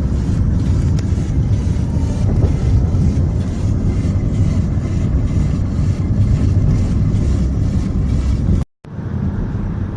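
Steady low rumble of wind and road noise from a Jeep driving along. It cuts out briefly near the end.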